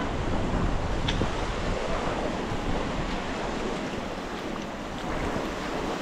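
Ocean surf washing onto a beach, with wind buffeting the microphone: a steady rushing noise that eases slightly a few seconds in.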